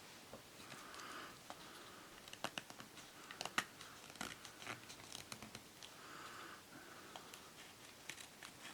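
Small blade of a pocket knife being drawn along a wooden stick to shave curls, a faint run of crackles, clicks and soft scraping strokes.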